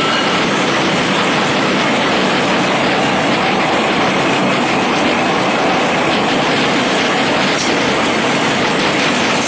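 Napkin paper machine's colour printing unit running, its ink and printing rollers turning with a steady, even mechanical noise.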